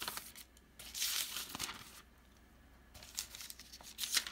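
Bible pages rustling as they are handled and turned, in a few short bursts of papery crinkling.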